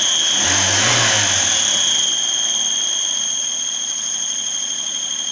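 Citroen C2's 1.6 engine running with a steady high-pitched whistle; the engine is briefly revved up and back down in the first couple of seconds. The whistle came on once the engine was hot and stays when it is cold; spraying WD-40 did not cure it.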